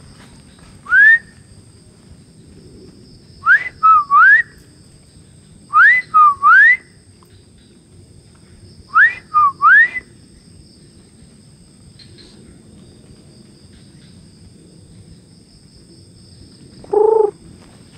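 A person whistling to draw an answer: four whistled phrases, the first a single sharp rising note, the other three each three quick notes, rising, dipping and rising again. A brief lower-pitched sound comes near the end.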